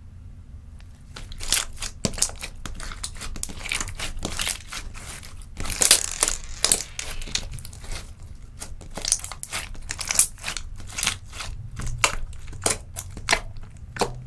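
Hands kneading and pressing sticky clear slime tinted with nail polish: a dense run of wet, crackly clicks and pops, starting about a second in.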